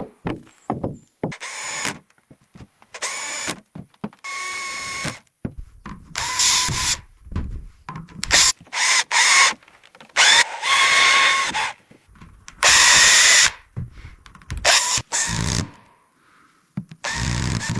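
Power drill run in a series of short bursts, each with a steady motor whine, separated by brief pauses.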